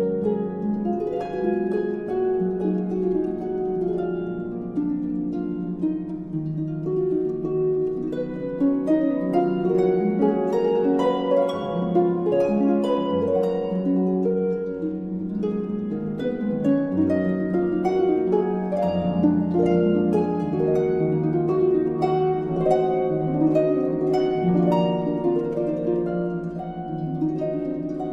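Background music on plucked strings, a steady flow of quick, ringing notes.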